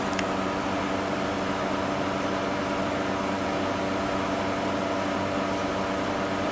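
Steady electrical hum made of several even tones, with a short click just after the start.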